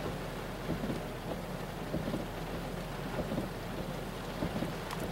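Heavy rain pattering steadily on a car, heard from inside the cabin, over a low steady rumble.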